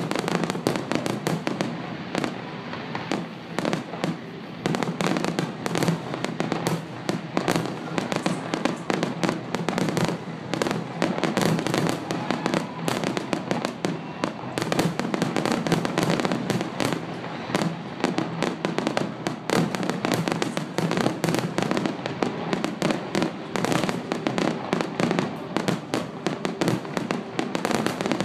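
Fireworks display in full barrage: aerial shells bursting in rapid, overlapping bangs, many a second, with no pause.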